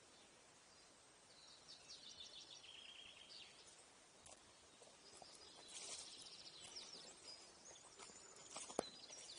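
Faint birdsong in a quiet forest: high trilling and chirping calls, with a sharp click near the end.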